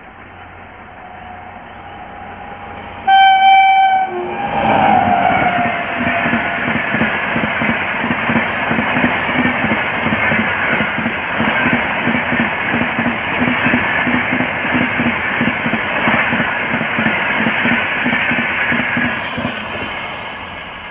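Electric train hauled by a WAP-7 locomotive, passing at high speed (about 130 km/h). It approaches with a rising rush, and about three seconds in the locomotive sounds a loud horn for about a second. The train then rushes close by with a fast run of regular wheel beats on the track, which fade near the end as the last coach draws away.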